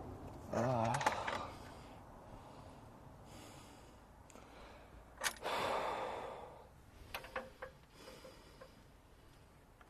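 A man's short strained grunt, then a breathy sigh, as he struggles with a hydraulic hose coupling, followed by a few light clicks from the fittings.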